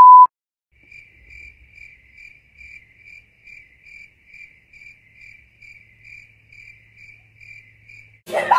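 A TV test-card tone, a steady 1 kHz beep, cutting off just after the start, then a cricket sound effect: faint, evenly spaced high chirps a little over two a second, until voices break in near the end.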